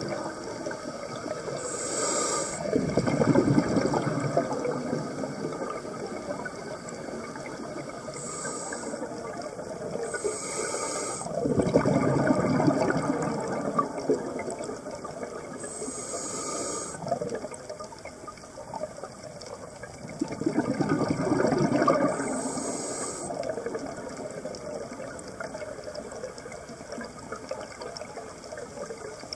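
Scuba diver breathing through a regulator underwater: short hissing inhalations and long bubbling rushes of exhaled air, one breath about every nine seconds.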